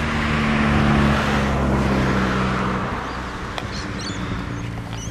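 A car passing by on the road, its engine hum and tyre noise loudest about a second in and then fading away.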